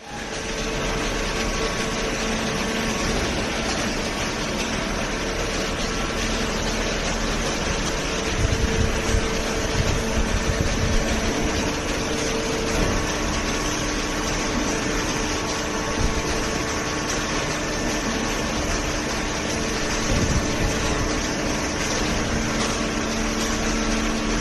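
Hydraulic cardboard baler and its feed conveyors running, a steady machine noise with a constant hum from the hydraulic power pack.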